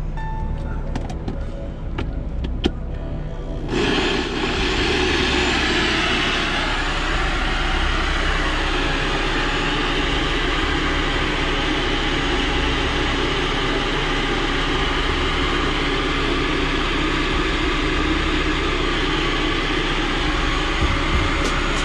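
Personal bullet-style blender motor starts about four seconds in and runs steadily, blending fruit and yogurt into a smoothie. A few light clicks come just before it starts.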